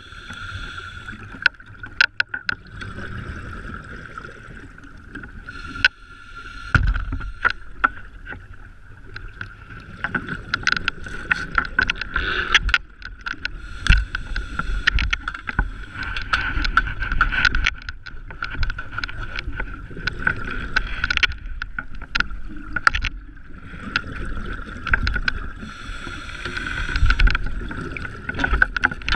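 Underwater sound picked up through a GoPro housing: scuba divers breathing on their regulators, with surges of exhaled bubbles rushing every few seconds between short lulls, and many sharp clicks and knocks of gear against the housing, over a steady hum.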